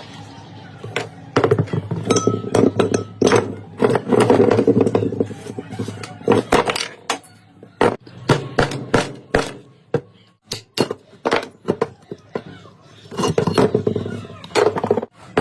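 Many sharp metallic clinks and knocks in an irregular run, with a steady low hum under them in stretches.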